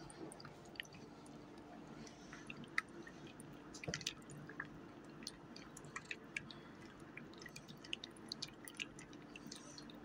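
Metal spoon stirring in a ceramic coffee mug: faint, scattered light clinks and scrapes against the cup, over a low steady hum.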